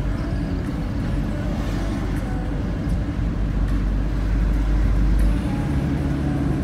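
Road noise inside a moving car: a steady low rumble of engine and tyres, swelling a little about four to five seconds in.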